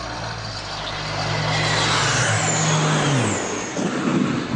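Low-flying airplane passing with a steady engine drone and high whine that both drop in pitch about three seconds in, followed by a loud crash and explosion as it hits the ground about four seconds in.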